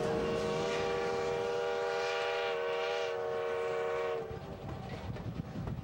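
Steam locomotive's whistle blowing one long steady blast that cuts off about four seconds in, leaving the clatter of the passenger car's wheels over the rail joints.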